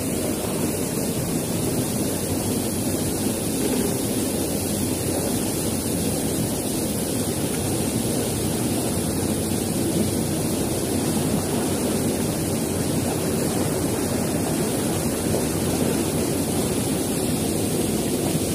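Steady rush of water pouring out through a small sluice gate and churning into foam around a boat.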